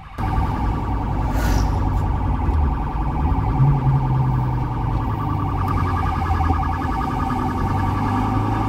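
Police patrol car's electronic siren sounding in a rapid warbling pattern, cutting in suddenly, over the car's own engine running hard under acceleration, its pitch stepping up about three and a half seconds in.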